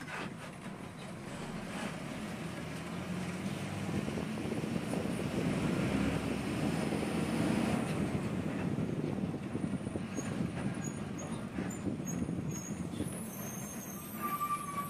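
KSRTC Sarige bus running, with engine drone and road rumble heard from inside the passenger cabin. It grows louder around the middle, then eases off. A brief steady high tone sounds near the end.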